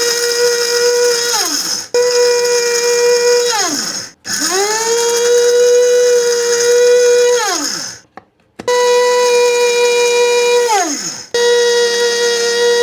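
Kitchen dry grinder's brushed motor grinding rice in short pulses: about five runs of a steady high whine, each starting suddenly and winding down with falling pitch when switched off.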